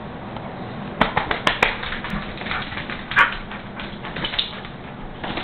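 Corgi's claws clicking and tapping on a vinyl floor as the dog moves about: a quick, irregular run of sharp taps starting about a second in, with one louder tap about three seconds in.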